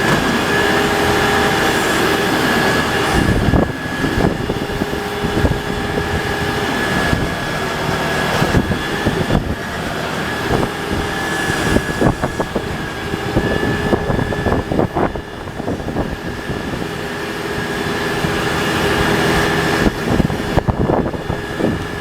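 A Bradco backhoe being worked by the engine that powers it: a steady engine run with a constant high whine, broken again and again by short metallic knocks and clanks from the boom and bucket.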